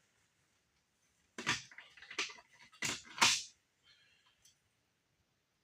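Four sharp clatters in quick succession starting about a second and a half in, the loudest near the three-second mark, followed by a couple of faint clicks.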